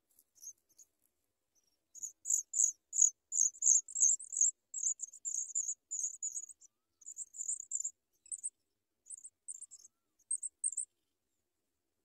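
Pipit nestlings begging at the nest: a rapid, irregular run of thin, very high-pitched cheeps that starts about two seconds in and thins to a few calls near the end.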